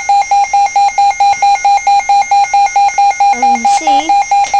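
Midland WR-120 weather radio sounding its alert siren in test mode: a loud, high, single-pitched beep pulsing rapidly and evenly, about six beeps a second.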